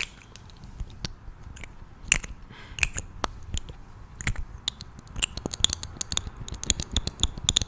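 Close-miked clicks, taps and light crackles from hands handling cosmetic packaging and the cardboard advent calendar. They come irregularly at first and then thick and fast in the last couple of seconds.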